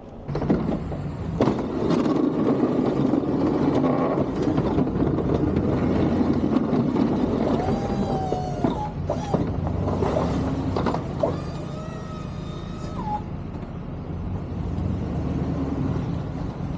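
Snow-plow pickup truck running and driving, a steady engine rumble with road noise, and a couple of brief whining tones about halfway through.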